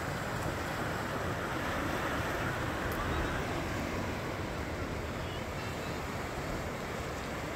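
Ocean surf washing over a rocky shore: a steady rush that swells slightly a couple of seconds in, with some wind rumble on the microphone.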